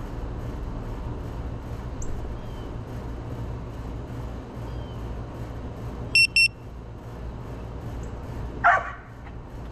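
Steady low rumble with two quick, high-pitched electronic beeps about six seconds in and one short, loud cry near the end.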